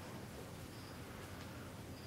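Quiet room tone: a faint steady hiss with a low hum, and no distinct sound.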